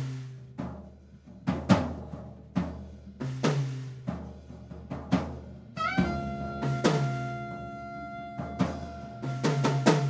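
Jazz band music: a drum kit plays with low bass notes underneath. About six seconds in, a lead instrument comes in with a note that scoops up into pitch and is held.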